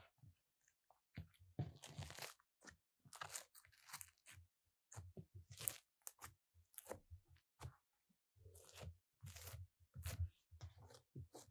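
Glossy slime being pressed, squeezed and folded by hand, giving faint, irregular sticky crackles and squelches.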